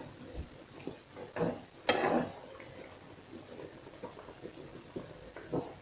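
A metal fork turning pieces of boiled beef in broth in a nonstick frying pan: a few short scrapes and knocks against the pan, the loudest about two seconds in.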